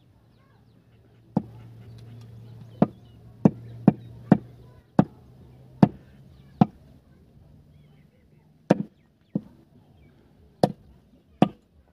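Heavy butcher's cleaver chopping goat meat and bone on a wooden log block: about a dozen sharp chops at an uneven pace, with a pause of about two seconds partway through. A faint low hum runs underneath.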